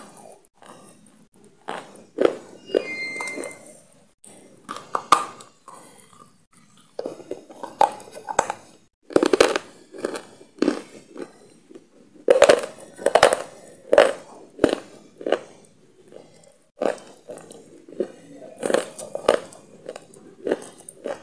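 Close-miked chewing with crunchy bites and wet mouth sounds, coming in irregular bursts of crackling and clicks.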